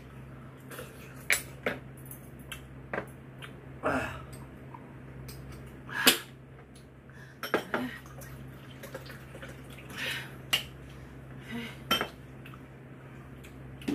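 Eating utensils clinking and tapping against bowls and plates at a meal: scattered short clinks every second or so, the loudest about six seconds in, over a low steady hum.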